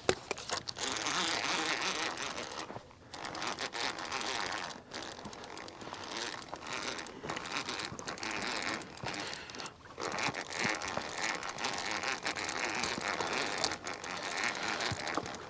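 Fishing reel being cranked as a hooked catfish is reeled in: a dense run of fast clicking that stops briefly a few times.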